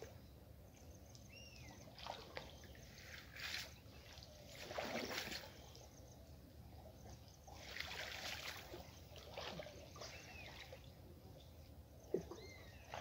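Water splashing and trickling in a few separate bursts as a cast net is hauled up out of a shallow muddy pond, streaming from the mesh.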